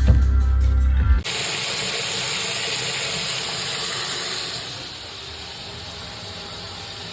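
Water hissing through a toilet fill valve as the tank refills, a steady rush that turns quieter about four and a half seconds in. Background music with a low hum plays for about the first second and then cuts off abruptly.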